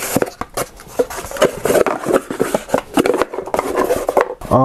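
Cardboard boxes and packaged phone cases being handled on a table: rustling and scraping with irregular light taps and knocks.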